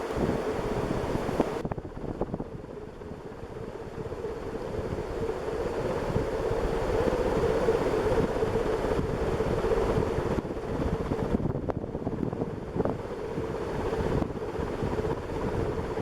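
Early-1980s SMC Laguna 132 cm ceiling fan running on high speed, about 250 RPM. Its strong airflow buffets the microphone with gusty wind noise that swells and eases, over a steady hum.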